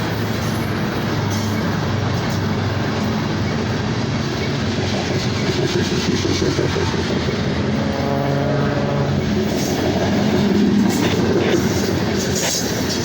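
Freight train rolling past, a steady rumble of wheels on the rails with clicking over the rail joints.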